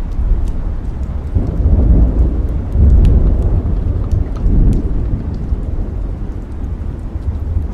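Thunder rumbling low, swelling for a few seconds and then easing off, over steady rain with a scatter of sharp crackles.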